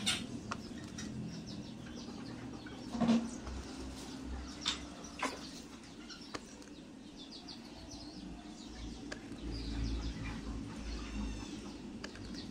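Quiet handling sounds as a soldering iron tip is pushed through a thin plastic container: a few light clicks and taps over a low steady hum, with faint high chirping near the end.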